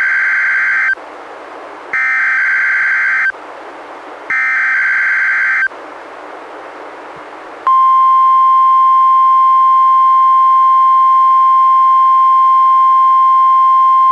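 NOAA Weather Radio test broadcast. It starts with three short buzzy data bursts, the digital SAME alert header, each about a second long with short gaps between them. Then comes the loud, steady, single-pitched 1050 Hz warning alarm tone, starting about eight seconds in.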